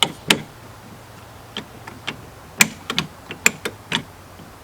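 Irregular clicks and knocks of the lock's plastic handle parts being handled and fitted into place, two quick ones at the start and a scattered run of about ten more after.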